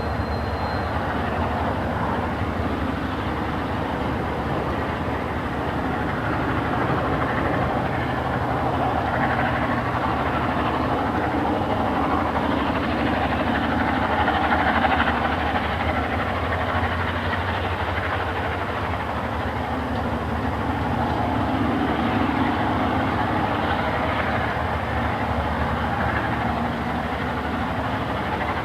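EMD diesel-electric locomotives running steadily, their engines swelling a little louder about halfway through and easing again.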